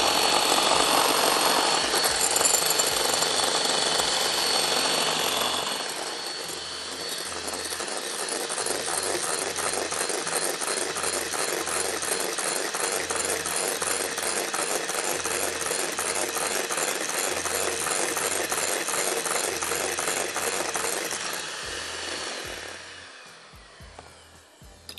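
Electric hand mixer running steadily, its beaters whisking egg whites in a glass bowl to a froth. It runs loudest for about the first six seconds, a little quieter after that, then winds down and stops near the end.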